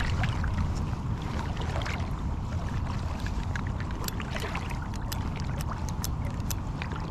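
Steady low rush of flowing creek water mixed with wind noise on the microphone, with scattered light clicks and taps in the second half.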